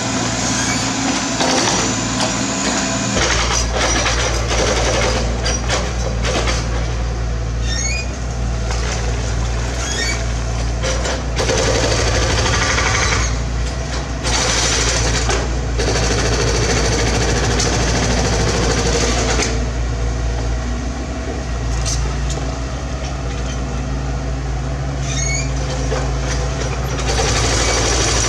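Mini excavator diesel engine running steadily under load, its note deepening about three seconds in. Over it come repeated knocks and scrapes of the bucket working rock debris.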